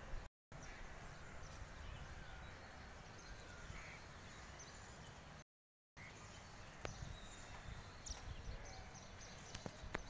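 Faint outdoor ambience: a low rumble of wind on the microphone, with faint bird chirps and a few sharp clicks in the second half. The sound cuts out completely twice, briefly near the start and for about half a second in the middle, at edit cuts.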